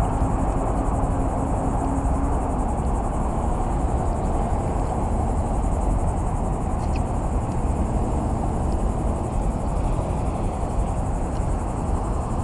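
Steady outdoor background noise with a low rumble, and a faint, steady high insect trill over it; a low hum fades out about two seconds in.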